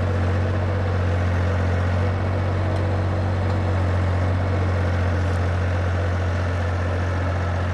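Mini excavator engine running at a steady speed: a constant low drone that does not change throughout.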